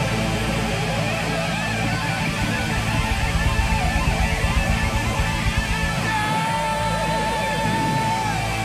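A rock band playing live with heavy electric guitars and drums, with no singing. Rapid beats pound through the middle, then a long high held note comes in about six seconds in and bends down near the end.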